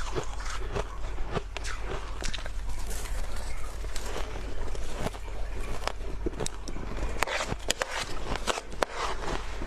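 Close-miked crunching of soft white ice being bitten and chewed, a run of irregular sharp crackles.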